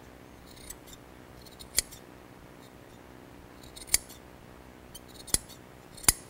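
Scissors snipping through jute carpet padding: four sharp snips, the last two closer together, with faint scratchy rustling of the fibres before some of them.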